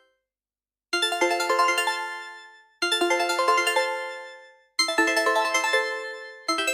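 A Nokia mobile phone ringtone playing: a short, quick run of notes, repeated four times about every two seconds, each phrase fading out before the next begins.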